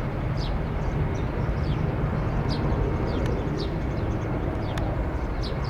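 Steady low rumble of an Airbus A319's jet engines climbing away after takeoff. A bird gives short falling chirps about once a second over it.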